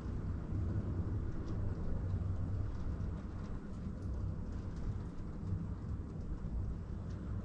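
OO gauge model train running along the layout track: a steady low rumble of the locomotive's motor and wheels on the rails, with faint light clicks.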